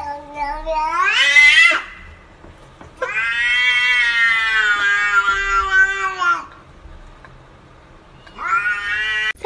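Domestic cat meowing three times in a drawn-out yowl: a call that rises in pitch at its end, a long wailing meow lasting about three seconds from about three seconds in, and a shorter rising meow near the end.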